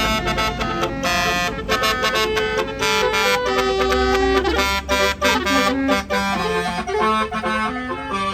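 Multi-trumpet 'telolet' bus horn (Basuri type) playing a quick, stepped melody of loud horn notes, over the low rumble of a bus.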